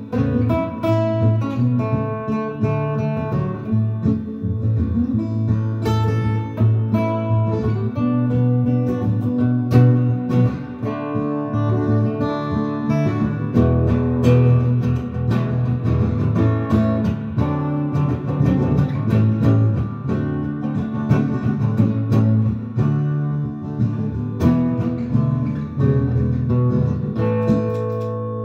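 Acoustic guitar played solo, a passage of picked notes and strummed chords.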